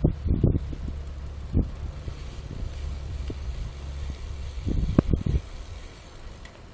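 Steady low rumble of wind on the microphone and bicycle tyres rolling on an asphalt path, broken by a few knocks and bumps from the ride, the loudest about five seconds in.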